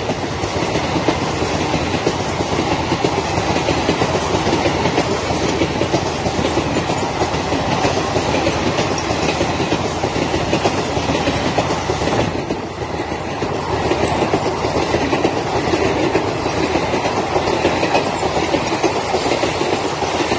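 Blue ICF passenger coaches of an Indian Railways express train running past close by at speed: a steady clatter of wheels over the rails, dipping briefly about twelve seconds in.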